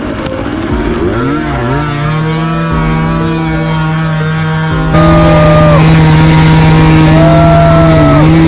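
Off-road motorcycle engine revving up about a second in, then held at steady revs. It turns abruptly louder about halfway through, and the revs dip and pick up again near the end.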